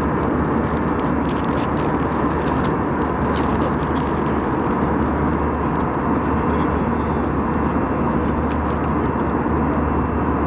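Steady cabin noise of an Airbus A320 in flight, a dense even rush of engine and airflow. A few faint crinkles of a paper-and-plastic food wrapper being handled sit on top of it in the first few seconds.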